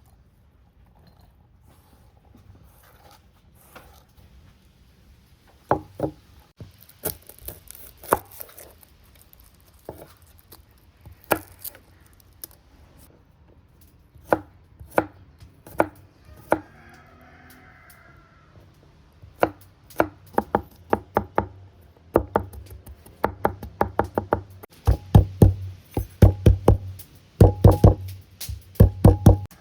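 Knife chopping on a cutting board: scattered single chops at first, then quick runs of several chops a second toward the end.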